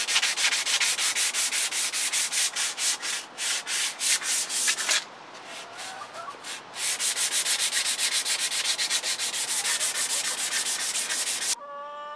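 Hand-sanding the rust off an old handsaw's steel blade with a sanding block: quick, even back-and-forth scrubbing strokes, about five a second. The strokes stop for under two seconds about five seconds in, and stop again near the end.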